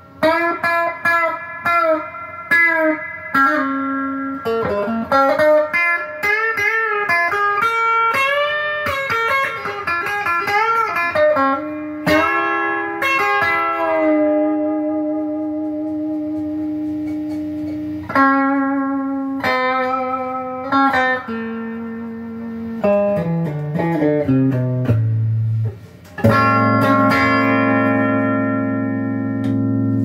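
Stock Squier Debut Series Stratocaster electric guitar played through an amp: quick single-note lines with several string bends, a chord left ringing in the middle, a stepping-down run, then a long held low chord near the end.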